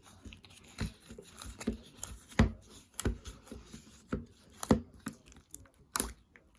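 Green glitter slime being squished and poked by hand, giving irregular sticky pops and clicks.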